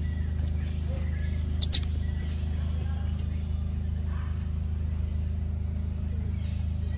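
Faint bird chirps over a steady low hum, with two sharp clicks close together about a second and a half in.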